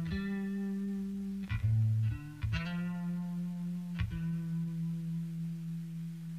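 Instrumental music: low held notes that ring on, with a new note struck every second or two.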